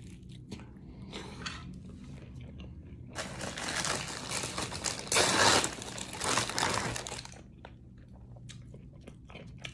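Close-miked crunching and chewing of a fried egg roll: faint mouth clicks at first, then a few seconds of loud, dense crunching about three seconds in, tapering off near the end.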